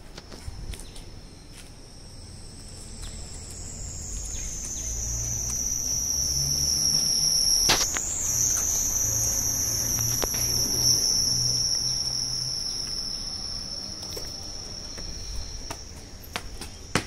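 Insects keep up a steady high-pitched drone that swells to its loudest about halfway through and then fades. Underneath there is a low hum and a few scattered clicks.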